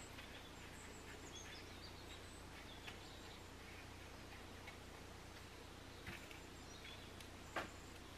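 Faint rustling as soft dough balls are rolled in dry bread crumbs in a bowl, with small scattered ticks and one louder tap near the end as a coated ball is set down on the baking tray, over a low steady hum.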